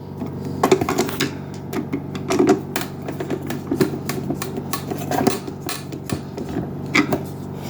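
A hand screwdriver driving a screw into the plastic housing of a Keurig K-Supreme coffee maker: irregular clicks and small knocks of the tool and plastic parts.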